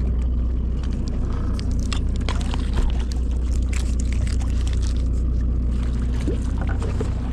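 Boat engine running with a steady low hum, with scattered short clicks and scrapes from handling on deck.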